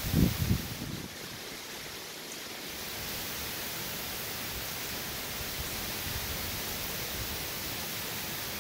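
Steady hiss of hurricane wind-driven rain, with a gust of wind buffeting the microphone in the first second.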